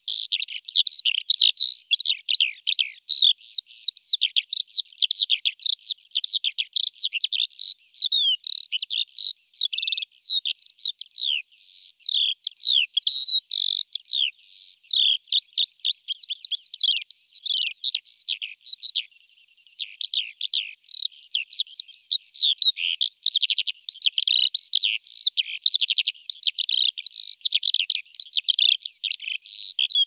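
Lark song: a long, unbroken stream of rapid, high, varied chirps, warbles and trills.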